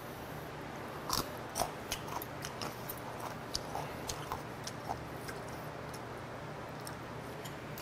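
A person chewing crunchy food close to the microphone: crisp crunches several times a second starting about a second in and dying away around five seconds.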